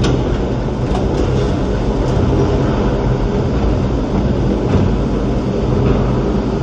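The Gateway Arch tram capsule climbing inside the arch leg, heard from inside the car: a steady low rumble of the car running on its track, with a few faint clicks.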